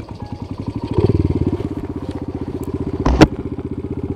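Honda Monkey Z50J's small single-cylinder four-stroke engine idling with a fast, even putter, briefly louder about a second in. A single sharp knock about three seconds in is the loudest sound.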